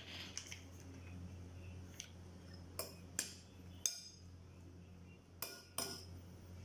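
Utensils clinking and knocking against dishes: several short, sharp clinks at irregular gaps, the loudest in the middle and near the end, over a steady low hum.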